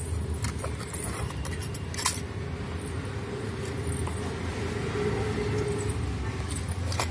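A steady low rumble, with a few light clicks of eggshell against a steel bowl as a boiled egg is peeled; the sharpest click comes about two seconds in.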